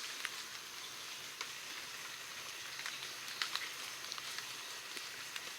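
Light rain falling: a soft steady hiss with scattered single drops ticking.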